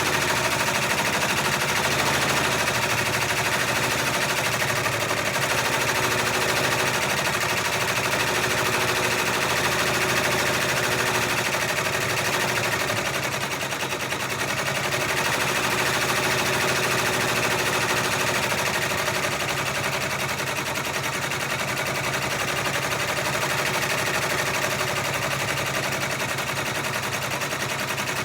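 Baby Lock six-needle embroidery machine stitching a monogram at speed: a steady, rapid chatter of needle strokes.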